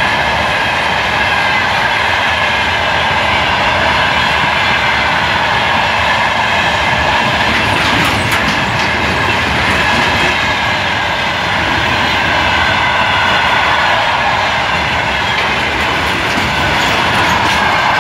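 Open steel freight wagons of an iron ore pellet train rolling past close by: a steady, loud rumble and clatter of steel wheels on the rails, with a high squealing ring from the wheels. A burst of sharper clanks comes about eight seconds in.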